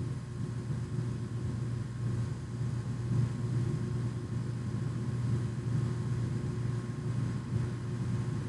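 Steady low background hum and rumble with a faint steady whine above it, unchanging throughout with no distinct events.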